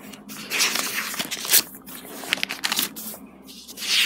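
Paper pages of a spiral-bound notebook being flipped by hand, a few quick rustles of paper one after another.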